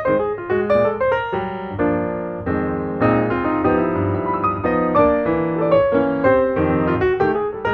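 Background piano music: a run of single notes giving way to held chords.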